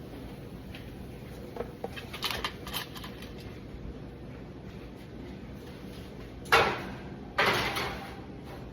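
Kitchen handling noises: a few light clicks and knocks, then two louder clattering bursts of cookware or utensils being handled, the second longer and fading out.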